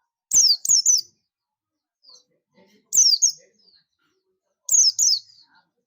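White-eye (Zosterops, the hobbyists' pleci buxtomi) calling in its ngalas style, a call to its companions. It gives three short bursts about two seconds apart, each of two or three sharp, high notes that fall in pitch.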